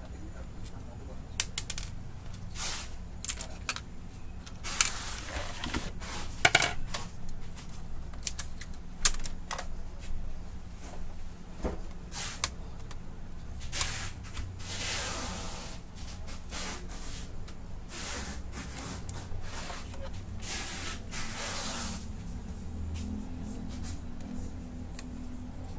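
Screwdriver and hands working on a stripped-down Brother DCP-T710W inkjet printer's metal frame and plastic parts: scattered clicks and taps, with a few longer scraping stretches, over a low steady hum.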